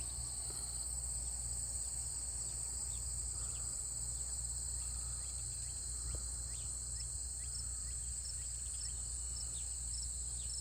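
Steady high-pitched insect chorus, with short, falling bird chirps scattered through it and a low steady rumble underneath.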